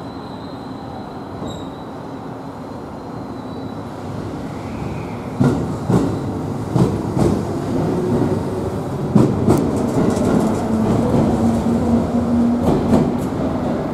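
JR 211 series 5000-series two-car electric train pulling out of the station. Its running noise grows steadily louder. From about five seconds in comes a string of sharp clacks as the wheels pass over rail joints.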